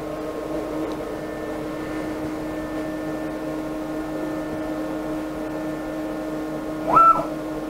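Steady multi-tone hum from a 6040 CNC router while its Z axis moves the spindle down onto a tool-height setter. About seven seconds in, a short, loud stepper-motor whine rises in pitch and then cuts off as the Z axis drives the spindle back up after the tool touches the setter.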